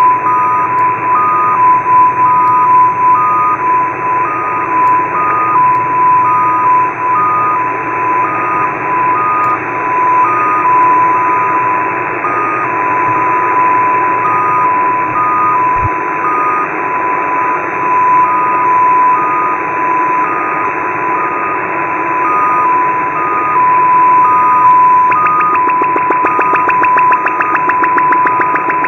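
XPA2 digital number station received on shortwave in upper sideband: a steady tone sits over loud static hiss, with a slightly higher tone beeping on and off about once a second. About 25 seconds in, a fast ticking data signal joins.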